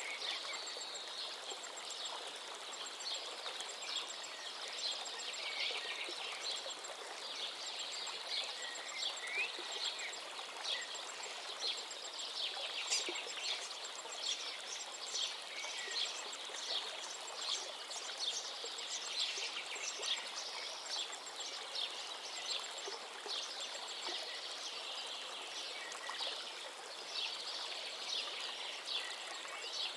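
A stream flowing steadily, with many small birds chirping and twittering over it throughout, and a faint rapid high-pitched trill running in the background.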